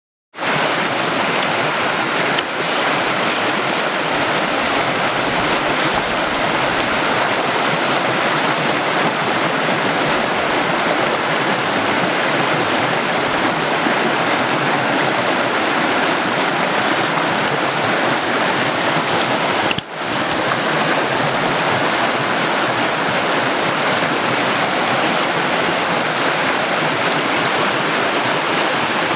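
Steady rushing of water from a mountain river at its springs, starting abruptly and running unbroken apart from two momentary dips.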